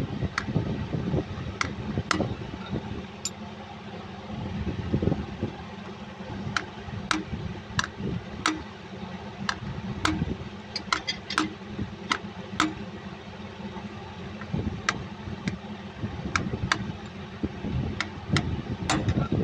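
Sharp metal taps, irregular and roughly one or two a second, from a hammer striking a drift to seat the new front crankshaft oil seal of a Cummins KTA50 engine. A steady low machinery hum runs underneath.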